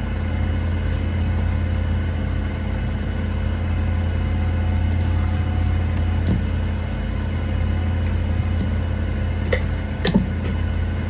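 Steady low machine-like hum with several fixed tones above it, with two short clicks near the end.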